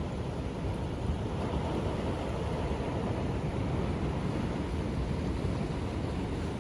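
Ocean surf making a steady, even rumble, with wind buffeting the microphone.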